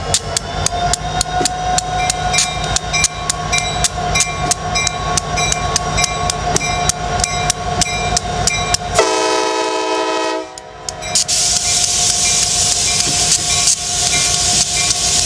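CSX diesel locomotives passing at close range, engines running, with a locomotive bell ringing about three strikes a second. About nine seconds in the bell gives way to a horn blast lasting about a second and a half. The bell then resumes along with a loud hiss.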